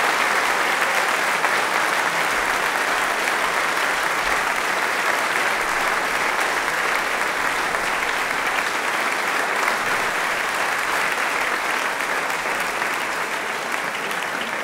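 Large audience applauding steadily, the clapping slowly dying down near the end.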